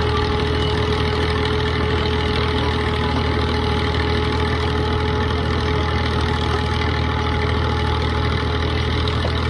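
Steady engine or heavy machine running at a constant speed, with a steady hum and no change in pitch; it cuts off abruptly.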